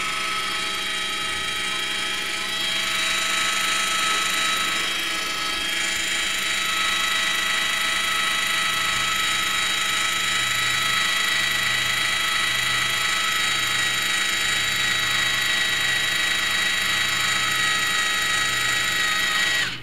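Small DC gearmotor run off a 12-volt battery, whining steadily as it winds string onto a 3D-printed pulley to lift a chicken coop door. The pitch shifts slightly in the first few seconds, a faint low throb recurs about once a second in the second half, and the motor cuts off abruptly at the end.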